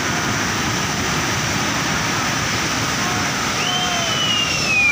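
Steady rushing noise of a muddy flash-flood torrent carrying debris across a mountain road. Near the end a high whistle-like tone rises, then slides down over about a second.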